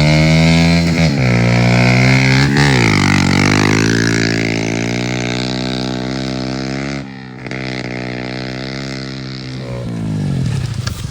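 Chevrolet Cavalier's engine running at high revs, its pitch dipping and climbing again twice in the first few seconds. It drops suddenly about seven seconds in and falls away near the end.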